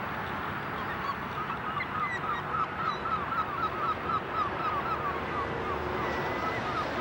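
A flock of waterfowl calling in a rapid run of short, repeated honks, starting about a second in, over a steady low background rumble.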